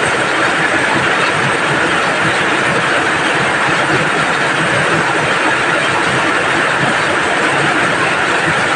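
Rain falling steadily: a loud, even hiss with no let-up.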